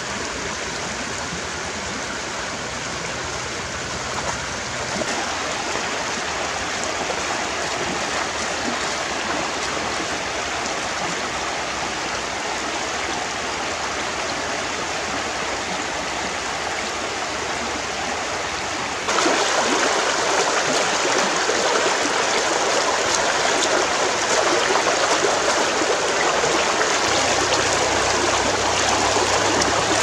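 Shallow, rocky stream running over stones: a steady rush of water that jumps suddenly louder about two-thirds of the way through.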